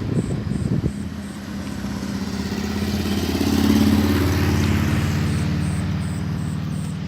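A motor vehicle's engine passing by at a steady pitch, growing louder to a peak about four seconds in and then fading away.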